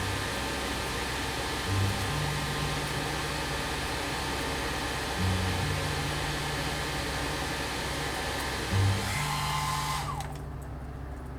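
Background music with slow, repeating low bass notes over a steady rushing noise, which cuts off about ten seconds in.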